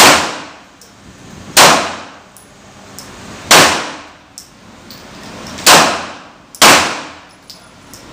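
Glock 17 9mm pistol firing five single shots at uneven intervals, each shot followed by a short echo.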